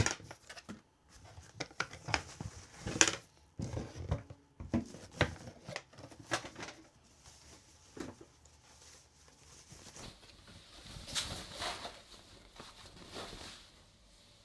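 Cardboard box and packaging being handled as a kettle is unpacked: irregular knocks, scrapes and clicks, then a stretch of rustling near the end.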